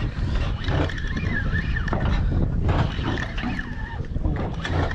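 Dense low rumble of wind and boat noise on the microphone at sea, with a thin high tone that comes and goes.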